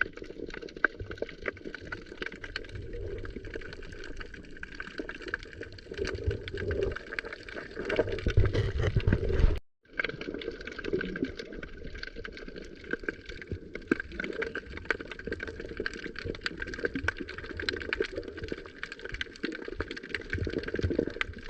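Seawater sloshing and gurgling close by, with small splashes, breaking off for a moment about ten seconds in.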